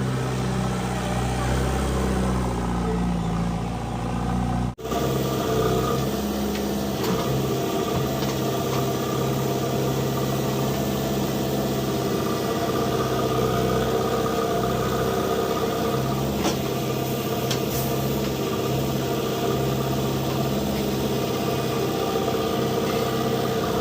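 JCB 3DX backhoe loader's diesel engine running steadily, the sound cutting out for an instant about five seconds in.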